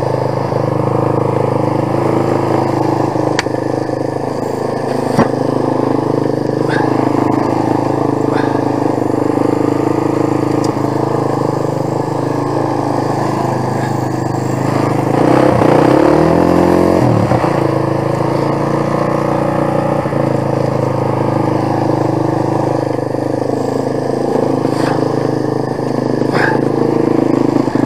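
Quad bike (ATV) engine idling steadily while the machine sits stuck in mud; about fifteen seconds in its pitch swings briefly and it gets a little louder, then it settles back to idle.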